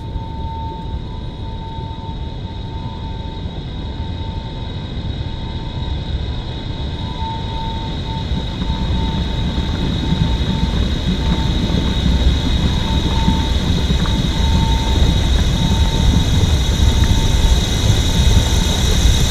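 Film sound-design drone: a dense low rumble that swells steadily louder, with a faint tone pulsing on and off above it and a steady high ring.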